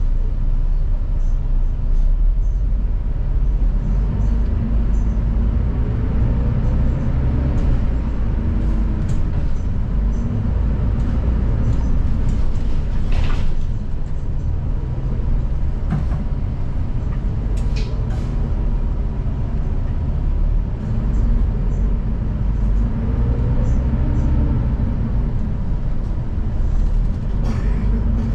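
City bus running, heard from inside at the rearmost seat: steady low engine and road rumble, with the engine note rising and falling twice. A few short sharp knocks and hisses come through about halfway.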